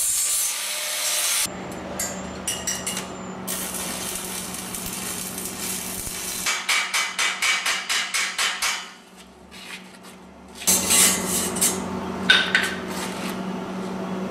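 A quick run of hammer blows on the metal conduit-pipe frame, about five a second for two seconds, over a steady hum. Loud, harsh hissing comes at the start and again about two thirds of the way through.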